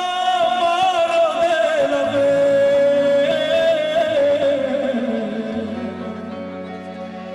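A man sings a gospel worship song through a microphone in long, ornamented phrases. He opens loud on a held high note and winds down the scale, growing quieter toward the end, over sustained instrumental chords that change slowly.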